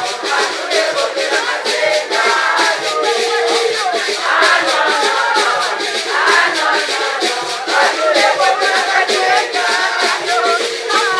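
Upbeat dance music with singing voices over a fast, steady percussion beat.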